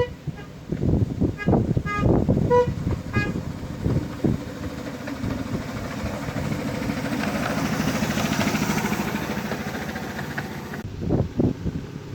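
A string of short horn toots, then the petrol-hydraulic miniature locomotive's engine running steadily as it passes, growing louder and then fading. Gusts of wind buffet the microphone near the end.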